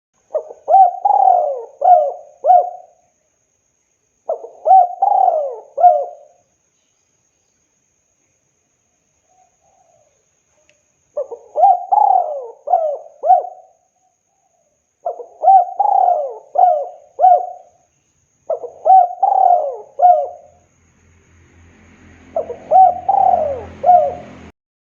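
Spotted dove (tekukur) cooing in six phrases of three or four notes each, with a pause of about five seconds after the second phrase. A low hum and hiss come in under the last phrase.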